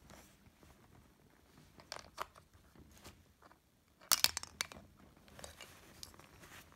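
Plastic toy truck parts being handled, giving a few light clicks and taps. A quick cluster of sharper plastic clicks and knocks comes about four seconds in.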